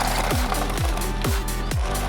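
Electronic music with a heavy kick drum, about two beats a second.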